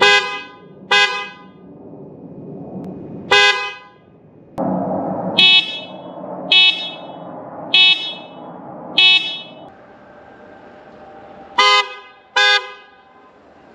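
A Toyota RAV4 Prime's horns tooting in short honks. The aftermarket Hella horn gives three deeper honks, then the stock horn gives four higher, thinner honks that sound wimpy beside it. Near the end the Hella horn gives two more honks as the car drives by.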